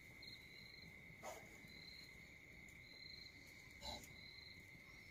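Near silence with crickets chirping: a steady high trill with short repeated chirps over it. Two faint clicks fall about a second in and near the end.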